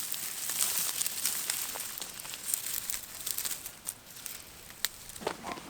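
Dry rustling and crackling with many small scattered clicks, as of dry plant material and parched soil being handled.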